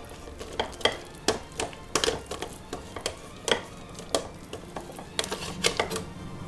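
A kitchen utensil pressing and tapping grated boiled potato down into a cake collar, making irregular light knocks and clicks.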